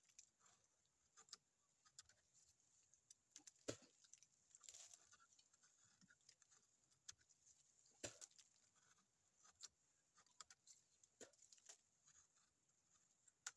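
Faint, irregular clicks and scrapes of teeth gnawing and tearing bark off a tree trunk, with a couple of louder snaps about four and eight seconds in.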